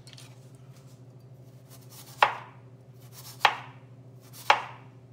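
Chef's knife slicing thin rounds off a raw potato, each stroke ending in a sharp knock on a wooden cutting board: three cuts, about a second apart, in the second half.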